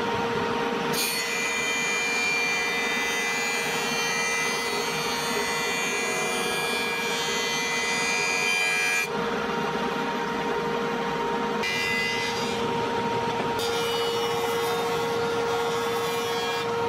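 Jointer running with its steady whine while its cutterhead planes walnut boards pushed across the bed, a rasping cut on top. The cutting noise drops out about nine seconds in, then comes back for further passes.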